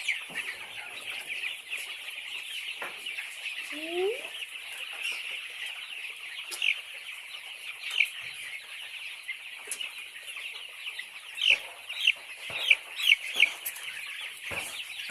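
A large flock of chickens calling together in a steady dense chatter of clucks and chirps, with a quick run of louder, sharper calls near the end.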